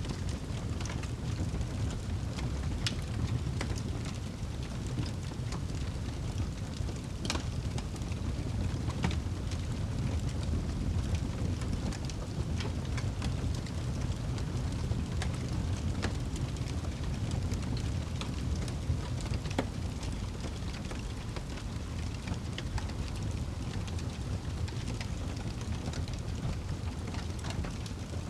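Wood fire crackling in a fireplace: scattered sharp pops and snaps over a steady low rumble of the flames.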